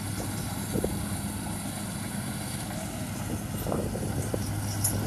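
Rice combine harvester's engine running steadily while it cuts, a low, even drone, with a few faint knocks.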